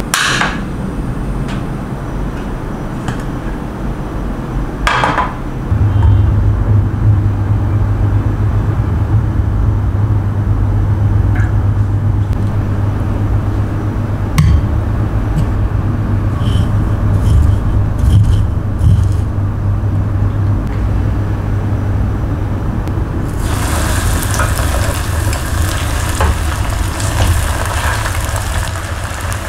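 A portable gas stove burner lights with a short whoosh about five seconds in, then its flame runs with a steady low rumble, with a few light clinks of tongs and dishes. Near the end, battered chicken pieces sizzle loudly as they deep-fry in hot oil.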